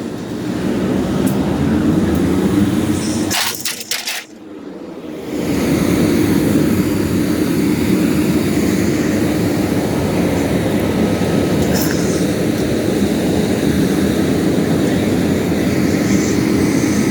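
Large engine running steadily with a low drone. It cuts out briefly about four seconds in with a few knocks, then returns at the same level.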